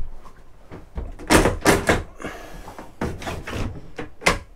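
A series of knocks and thumps from the cabin's fittings being handled, like a lid or door being shut: a cluster about a second in, more about three seconds in, and a sharp knock near the end.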